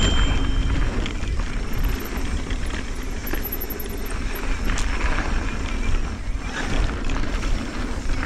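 Mountain bike riding down a dry dirt singletrack: wind rumbling on the action camera's microphone over the tyres rolling on loose dirt, with brief knocks and rattles from the bike over bumps.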